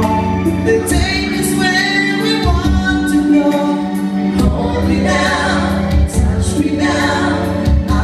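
Music: a song with singing voices over held chords and a bass line.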